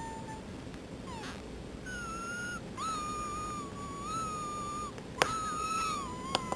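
High, thin squeaky whistling tones, the strange "si~ si~" sound, each held for one to two seconds with small wobbles in pitch and repeated several times. A few sharp clicks come near the end.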